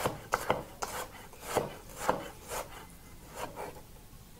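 Chef's knife slicing a red onion into half-moon slices on a wooden chopping board: a knock of the blade on the board with each cut, irregular at about two a second, stopping about three and a half seconds in.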